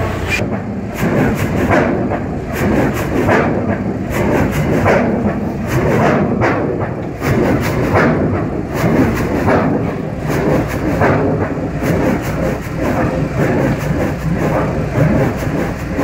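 Exhaust of a 1917 600-horsepower Snow gas compressing engine beating from its stack in a slow, even rhythm of heavy chuffs, with the engine running steadily.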